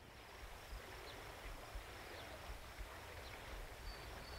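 Rural outdoor ambience: a steady hiss with uneven low rumbling from wind on the microphone, and a few short, faint bird chirps.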